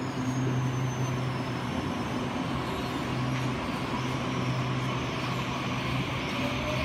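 Commuter electric multiple unit standing at the platform, its onboard equipment humming steadily with the hum cutting out and back in a few times. Near the end a rising whine sets in as the traction motors begin to pull the train away.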